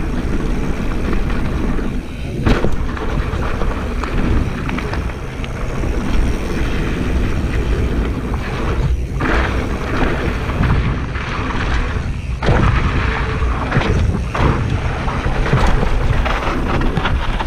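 Wind buffeting an action camera's microphone on a mountain bike riding fast down a dirt trail, with the tyres rolling over loose dirt and a few sharp knocks as the bike hits bumps.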